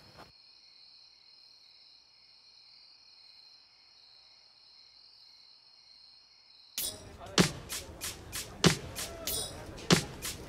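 Faint, steady chirping of crickets. About two-thirds through, music with a sharp, regular beat cuts in.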